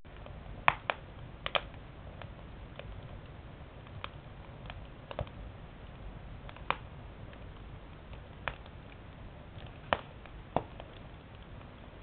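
Firewood burning in a wood stove, crackling with about a dozen sharp, irregular pops over a low steady rumble; the loudest pops come about a second in and near the ten-second mark.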